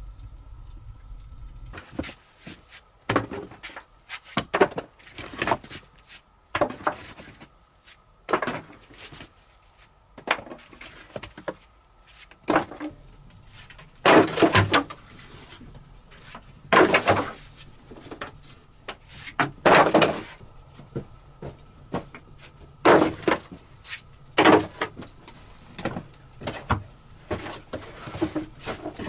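Split firewood logs knocking and clattering as they are dropped and stacked, in irregular wooden clunks every second or two, some in quick clusters.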